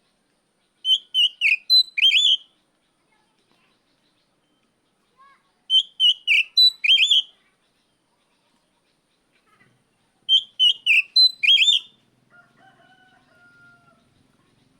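Oriental magpie-robin (kacer) giving a loud, fast phrase of high whistled and slurred notes, the same phrase three times about four and a half seconds apart, as a challenge call to a rival. Near the end a faint, lower, drawn-out whistle follows.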